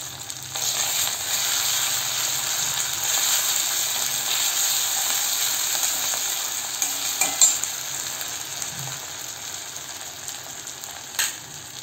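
Cumin and ginger paste with red chilli powder sizzling in hot mustard oil in a metal kadai, stirred with a flat metal spatula. The sizzle swells about half a second in and dies down toward the end. The spatula knocks sharply on the pan a couple of times.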